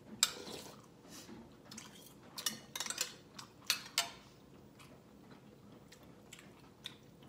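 A spoon clinking against a ceramic soup bowl a few times, with soft eating sounds in between.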